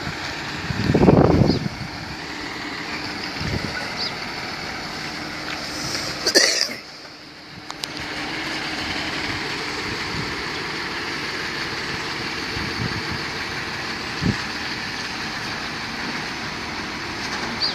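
Heavy truck tractor unit's diesel engine running steadily at low speed while manoeuvring, heard from a distance. There is a short loud burst of low noise about a second in, and the sound dips briefly near the middle.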